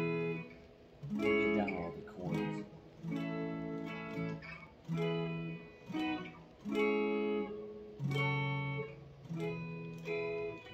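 Electric guitar with slow strummed chords struck about once a second, each ringing out and fading, with a few quick sliding notes about a second and a half in.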